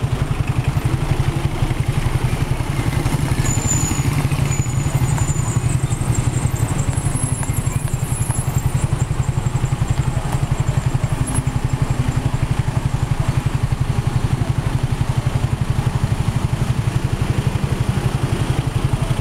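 Vehicle engines running as a slow line of cars creeps past, a steady low throb that never lets up.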